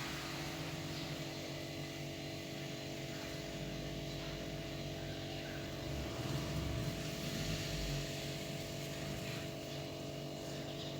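Refrigerator compressor running steadily while the fridge is being charged with freon, a constant motor hum with a few fixed tones.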